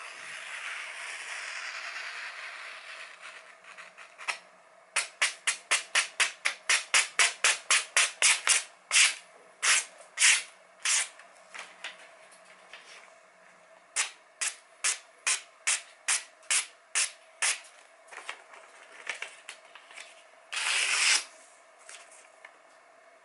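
A Masamoto santoku slicing through a sheet of printed paper in a sharpness test: one long drawn cut first, then a quick series of short crisp slices, about four a second and slowing, and a second, slower run of about two a second. Near the end comes one louder rustle of the paper.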